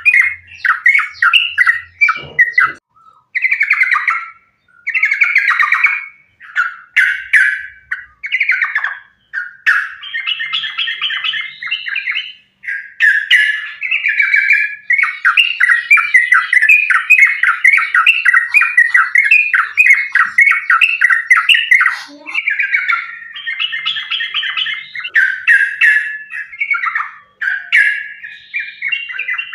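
Yellow-vented bulbul (trucukan) singing a fast 'ropel' song: rapid chattering runs of notes, broken by short pauses in the first third and almost unbroken after that.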